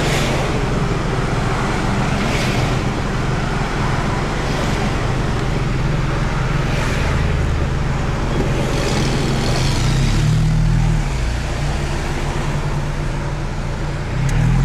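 Car engine running and road noise heard from inside the car while driving, with other traffic passing. The engine note steps up in pitch twice, as the car speeds up, about ten seconds in and again near the end.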